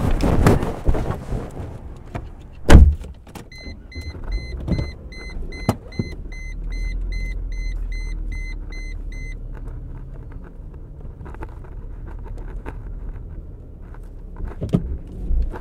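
A car door shuts with a thump, then the car's warning chime pings about three times a second for several seconds. Under it the engine starts and settles into a low, steady idle.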